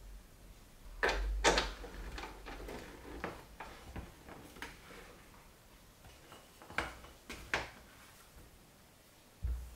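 Twist-lock welding cable plugs being pushed into and turned in the front-panel sockets of a mini inverter welder, with the cables, electrode holder and earth clamp handled: a cluster of clicks and a knock about a second in, scattered lighter clicks after, two sharp clicks later on, and a dull knock near the end.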